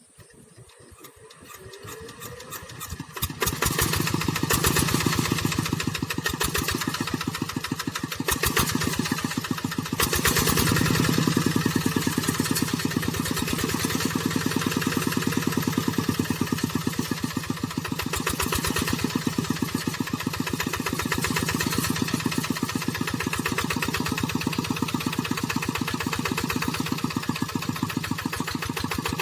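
Diesel tractor engine starting: it comes up from quiet over the first three seconds or so, then runs steadily with a rapid, even firing pulse.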